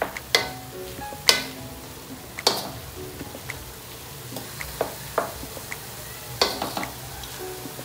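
Wooden spatula stirring diced pork in a stainless steel wok, with irregular knocks and scrapes against the metal over the steady sizzle of the pork sautéing in its fat.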